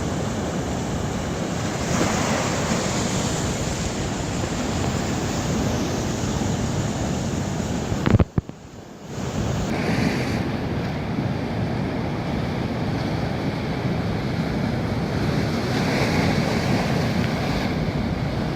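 Sea waves breaking on the shore in a steady wash, with wind buffeting the microphone. About eight seconds in there is a sharp click and the sound drops away for about a second before the surf returns.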